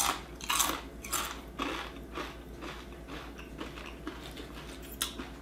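Kettle-cooked potato chip crunching as it is chewed: hard, crisp crunches about twice a second, loudest in the first second or two and then fading, with one more sharp crack near the end.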